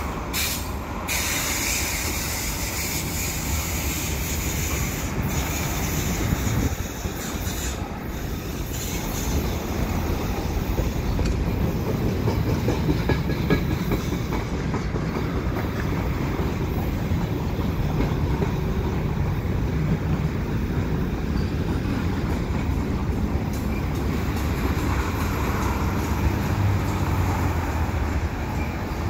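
Tank cars, covered hoppers and boxcars of a slow-moving CN mixed freight train rolling by: a steady rumble of steel wheels on the rails, with a few short knocks.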